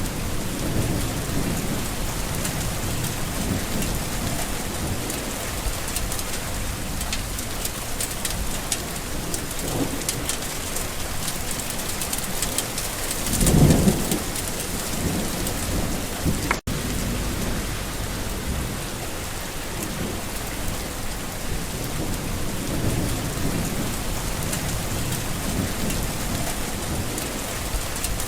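Steady rain falling, with a dense patter of drops and low rumbles of thunder. One louder rumble swells and fades about halfway through, and the sound drops out for an instant shortly after.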